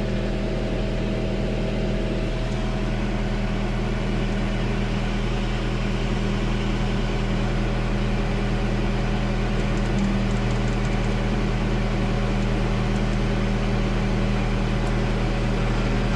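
John Deere 325G compact track loader's diesel engine running steadily.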